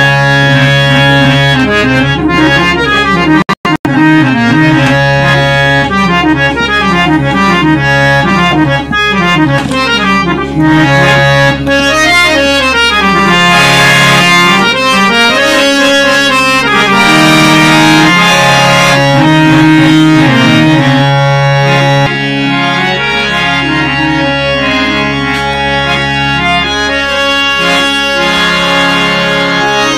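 Harmonium music: a melody of shifting notes played over a held low drone, with a brief break about three and a half seconds in.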